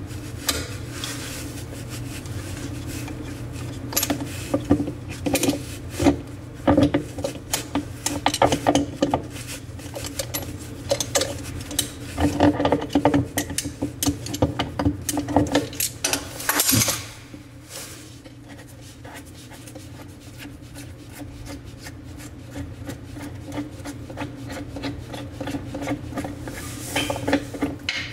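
Locking pliers turning a washbasin faucet's fixing nut, metal grating and scraping on the threads in irregular bursts; the scraping grows quieter a little past halfway as the nut works loose.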